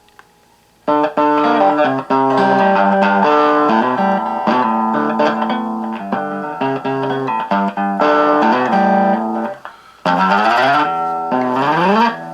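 Electric guitar played through a Honeytone mini amplifier's small speaker, shaped by a preset on a NUX PG-2 effects pedal. The playing starts about a second in and breaks briefly near the end before a fast run of notes.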